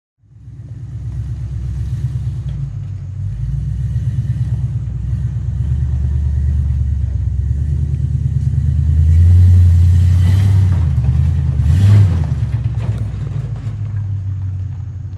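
A motor running with a loud, low, rapidly pulsing rumble that swells louder about two-thirds of the way through.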